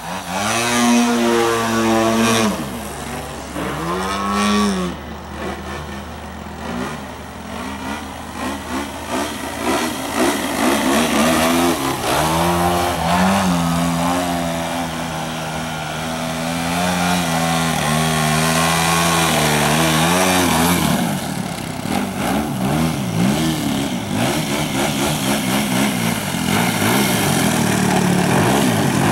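VVRC 40cc twin-cylinder gas engine of a 78-inch Extreme Flight Extra 300 RC plane, exhausting through a 2-into-1 header into a medium Pinnacle canister muffler, running in flight with its pitch sweeping up and down with throttle changes and passes. The engine is new and still breaking in, and it sounds really quiet. Near the end it runs steadier at low throttle with the plane on the ground.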